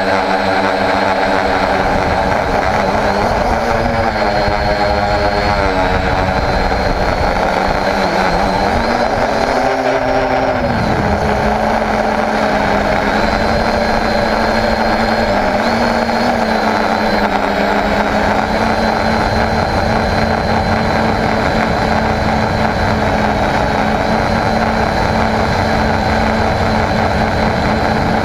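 A homemade quadcopter's electric motors and propellers, heard close up from its onboard camera. Their pitch wavers with the throttle and dips briefly about ten seconds in, then holds steady.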